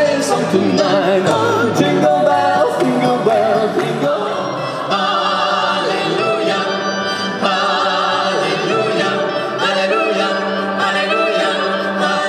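A small mixed ensemble of men's and women's voices singing together in harmony in a church, with a change to a fuller ensemble sound about five seconds in.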